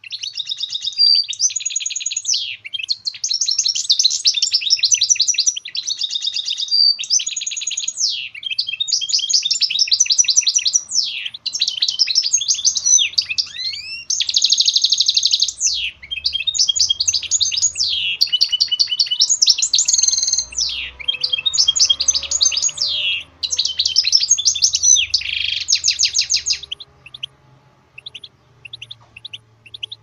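Goldfinch mule (goldfinch × canary hybrid) singing a long, unbroken song of rapid trills, buzzy rattles and sliding whistled notes. It stops about 26 seconds in, leaving only a few soft chirps.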